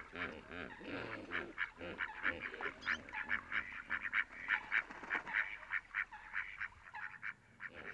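Waterbirds calling: many short, honking calls in quick succession, thinning out near the end.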